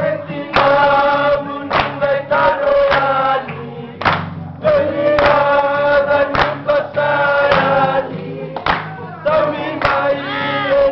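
A group of men singing together to an acoustic guitar, holding long notes in several voices.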